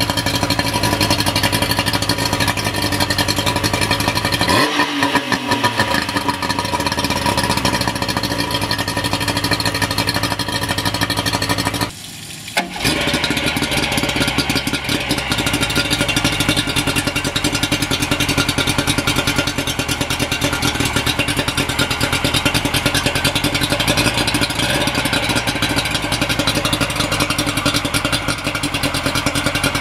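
Yamaha 50 hp two-stroke tiller outboard running out of the water on a garden-hose flush. About four and a half seconds in, the engine note falls. Near twelve seconds the sound cuts out for a moment, then carries on steadily.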